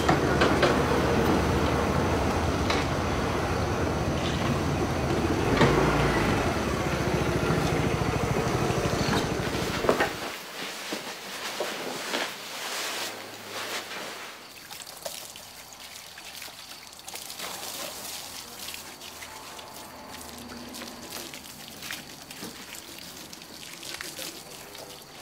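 Motor scooter engines running, loud and steady, cutting off suddenly about ten seconds in. A much quieter stretch with scattered light clicks follows.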